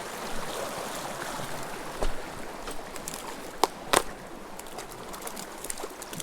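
Small mountain creek running steadily over boulders, with a few sharp clicks or knocks about two seconds in and again near the four-second mark.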